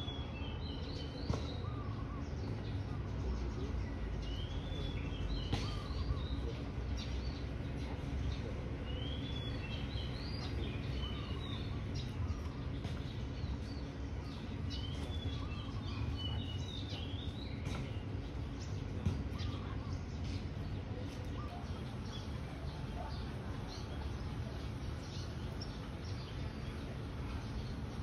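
A songbird singing short, high warbled phrases, a few notes each, repeated every few seconds, over a steady low background rumble.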